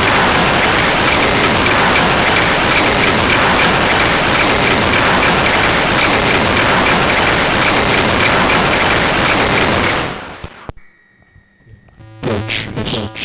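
Homemade noise-tone synthesizer putting out a dense, steady hiss of noise that fades out about ten seconds in. After a brief quiet, a pitched tone rich in overtones starts near the end, pulsing.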